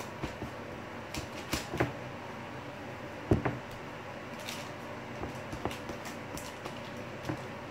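Hands pressing and working dough in a glass baking dish: scattered soft taps and rustles, with one sharper knock about three seconds in, over a faint steady hum.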